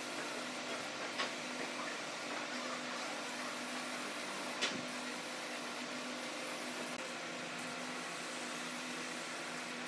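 Gravity-feed compressed-air spray gun hissing steadily as wood finish is sprayed, over a steady low hum. Two brief sharp clicks stand out, one about a second in and one near the middle.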